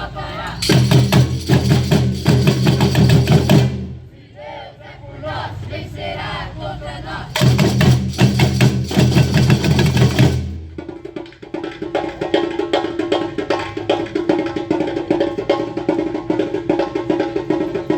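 Band rehearsing: two loud stretches of full-band playing with heavy bass, each about three seconds long, with voices between them, then from about eleven seconds in a steady groove with a held tone over even percussion ticks.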